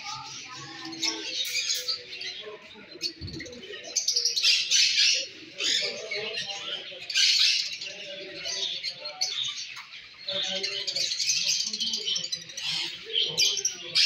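A dense chorus of many caged pet birds, cockatiels among them, chirping and calling over one another, louder in patches.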